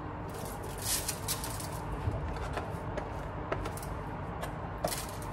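Raw, oiled chicken pieces being placed by hand into a baking tray: soft wet handling rustles and a few light clicks and knocks against the tray, scattered and irregular, the sharpest about two, three and a half and five seconds in.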